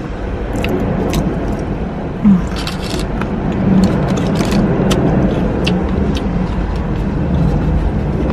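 Close-up mouth sounds of chewing crunchy fried chicken wings: irregular sharp crackles and smacks, over a steady low vehicle rumble.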